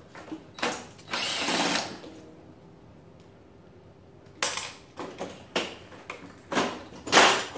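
Cordless drill with an Allen bit running in a short burst and then for about a second, backing out a 4 mm Allen-head bolt. Later comes a series of separate metal knocks and clunks, the loudest near the end, as the loosened aluminium plate is worked free.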